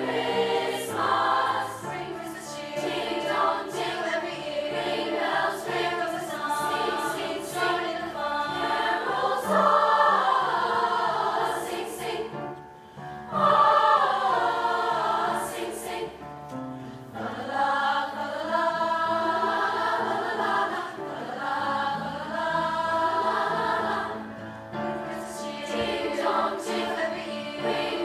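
Middle-school girls' choir singing in unison and harmony, with a short break about halfway through before the voices come back in louder.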